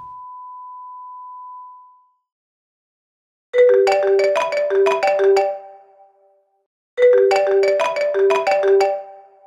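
A steady high tone fades out about two seconds in. Then a mobile phone rings with a marimba-style ringtone: a short melody of bright struck notes, played twice, starting about three and a half seconds in and again about seven seconds in.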